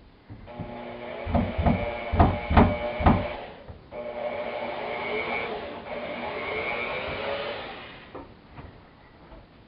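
Power drill driving screws into a wall: the motor whines in two spells, the first broken by several sharp knocks, the second steadier and lasting about four seconds before it stops.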